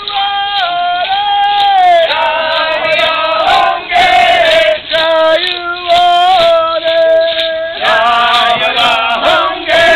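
Group of voices chanting a stomp dance song in held phrases a second or two long, with short breaks between them.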